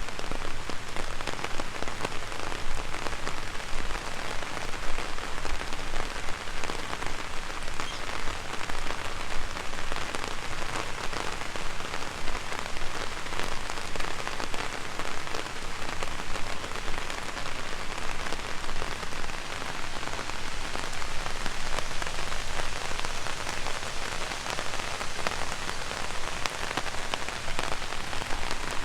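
Heavy rain falling on an umbrella: a steady, dense patter of many drops.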